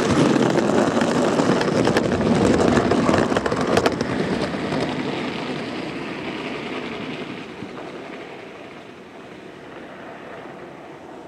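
Gauge 1 live steam model locomotive running past close by on garden track. It is loud for the first four seconds or so, with a few sharp clicks, then fades steadily as it draws away.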